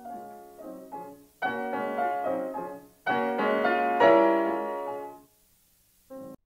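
Solo piano music: a quiet melodic line, then two full chords struck about a second and a half apart that ring and fade away, leaving a near-silent pause before one short note at the end.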